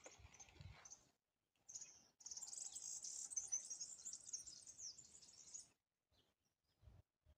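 High-pitched chirping and trilling of crickets or birds in a nature-sound recording, running for about three and a half seconds from about two seconds in, with silent gaps before and after.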